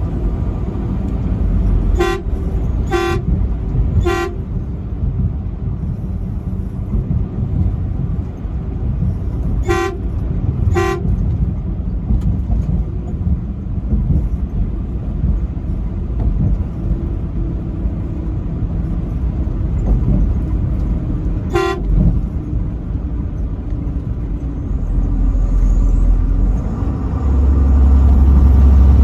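Truck horn sounding in six short toots over the steady engine and road noise of the moving truck. Three come about a second apart, then two more, then a last single toot. The low rumble grows louder near the end.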